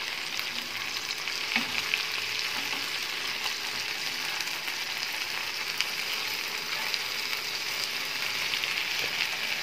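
Chicken leg pieces sizzling steadily in ghee in a nonstick frying pan, with a few light clicks of metal tongs against the pan as the pieces are turned.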